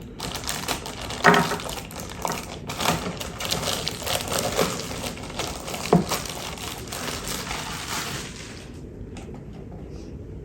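Cardboard box and plastic packaging of a PC power supply being opened and handled: dense rustling, crinkling and clicking that dies down about eight seconds in.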